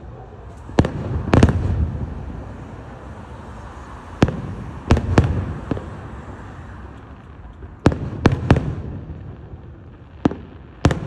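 Aerial fireworks shells bursting overhead: sharp bangs in clusters of two or three, a few seconds apart, each followed by a low rolling rumble.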